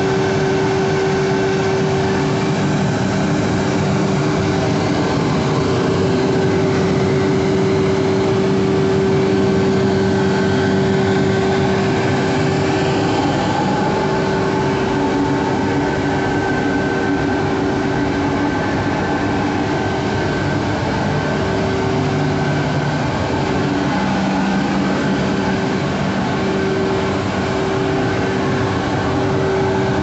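LPG-fired annealing furnace running, its burners and combustion air blower giving a loud, steady drone with a steady hum-like tone held throughout.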